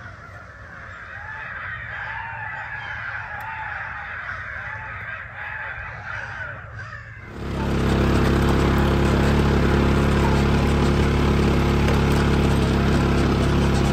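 Crows cawing repeatedly for the first half. Then, after an abrupt switch, the engine of a side-by-side utility vehicle runs with a loud, steady drone as it drives across a field.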